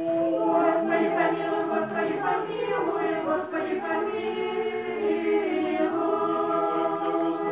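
Orthodox church choir singing liturgical chant a cappella, several voices holding long notes together.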